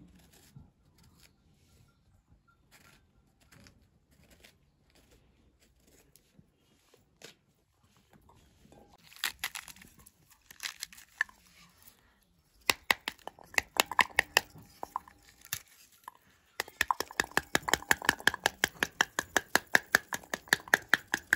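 A pomegranate being pulled apart by hand, its rind tearing and cracking. Then, from a little past halfway, a fast, steady series of sharp taps as the back of a knife knocks on a pomegranate half held over a metal bowl, beating the seeds out into the bowl.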